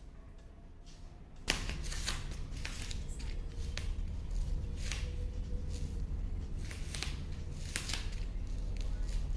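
Irregular clicks and rustles of something being handled, over a low rumble that starts suddenly about a second and a half in.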